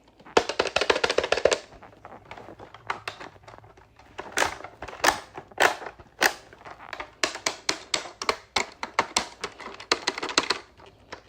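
Plastic buttons on a VTech Touch and Teach Turtle toy pressed over and over, clicking in quick runs with a few single harder clicks in between; the toy does not respond because it is not working.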